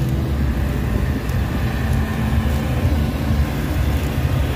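Steady low rumble of busy city street noise.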